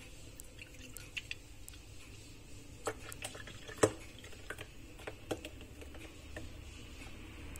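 Thick blended milkshake poured from a blender jar into a glass: faint pouring with scattered wet plops and splats, the loudest a little under four seconds in.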